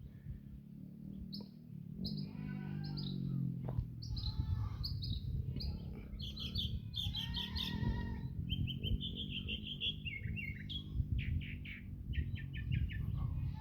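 A mockingbird singing a long, varied string of short phrases, each repeated several times before it switches to another, typical of its mimicry of other birds' calls. A low rumble runs underneath.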